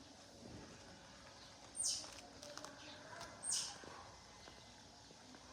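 Two short, high-pitched animal squeaks, each sweeping steeply down in pitch, about a second and a half apart.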